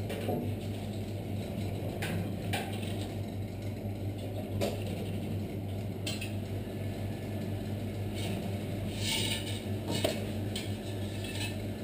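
Scattered light taps and clinks of a cookie cutter on the work surface as rounds are punched out of sheeted pasta dough, with a small cluster of them about nine seconds in, over a steady low hum.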